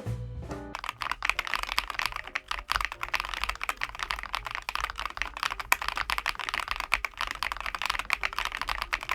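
Fast typing on a ROYAL KLUDGE M87 mechanical keyboard: a dense, continuous run of keystroke clicks starting a little under a second in.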